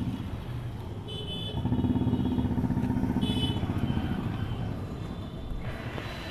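A motorcycle passing by on the street, its engine swelling about a second and a half in, holding for a couple of seconds, then fading away.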